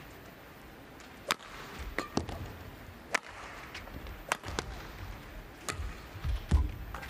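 Badminton rally: sharp racket strikes on the shuttlecock about once a second, six in all, with low thuds of the players' footwork on the court, the loudest near the end.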